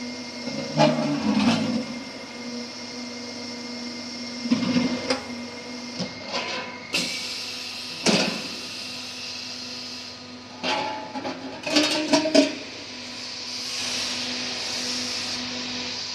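Exhaust-pipe roll forming machine running with a steady electric hum while a stainless steel pipe is worked in its forming rollers. Sharp metal knocks and clanks come at irregular intervals. A steady hiss comes in near the end.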